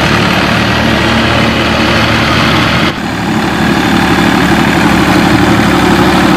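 New Holland tractor's diesel engine running steadily under load as it pulls a trolley heaped with soil, with a brief dip in level about three seconds in.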